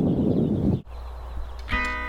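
A loud, uneven low rumbling noise that cuts off abruptly a little under a second in. Near the end, background music of plucked guitar notes starts.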